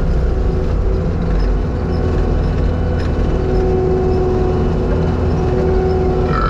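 Skid steer's diesel engine running steadily with a low rumble, the machine being driven.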